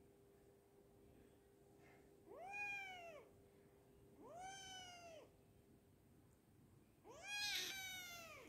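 A kitten meowing three times, each meow a high cry about a second long that rises and then falls in pitch; the third, near the end, is the loudest and longest.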